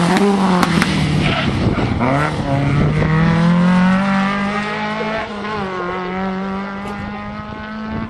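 Rally car engine at full load, its pitch dropping and climbing again with throttle lifts and gear changes, then holding a steadier note and slowly getting quieter as the car pulls away. A few sharp cracks come just under a second in.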